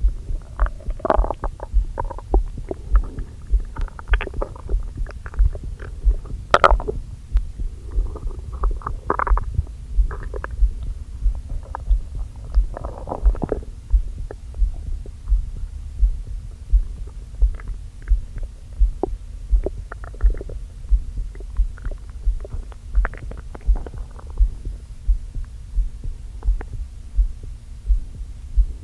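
Close-miked stomach gurgling and rumbling, over a regular low heartbeat thump about one and a half times a second. The gurgles are busiest in the first half and thin out to scattered pops in the second, from an upset stomach that the owner puts down to eating a big meal too quickly.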